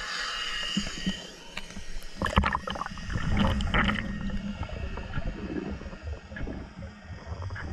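Water gurgling and rushing around an underwater camera as a spearfisher moves and swims. A hiss fades in the first second or so, then a cluster of knocks and rushes comes about two to four seconds in, and a low rumble follows.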